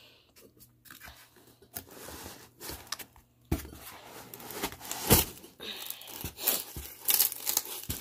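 Packing material crunching, scraping and rustling as a ceiling fan's metal mounting bracket is worked loose by hand from its insert in a cardboard box. Irregular knocks and scrapes run throughout, the loudest about five seconds in.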